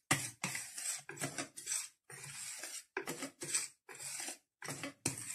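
Wire hand whisk folding thick cake batter in a plastic bowl: a run of short scraping swishes against the bowl, about two strokes a second.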